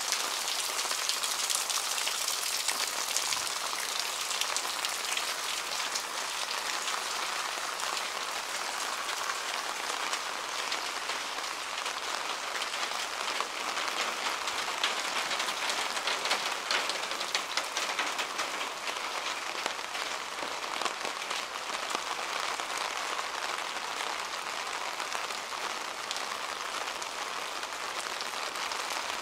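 Steady rain falling, a dense even hiss of countless close drop ticks.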